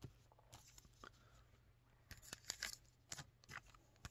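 Near silence with faint rustles and light clicks of hands handling trading cards and a card pack's wrapper, mostly in the second half.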